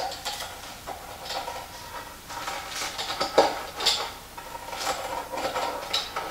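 Rolling pizza-cutter wheel crunching through a crunchy pizza crust and scraping on a wooden cutting board, in a series of irregular back-and-forth strokes with a few sharp clacks.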